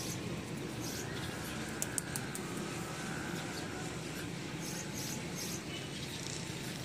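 Ballpoint pen writing on paper: faint scratching, with a few light taps about two seconds in, over steady background noise.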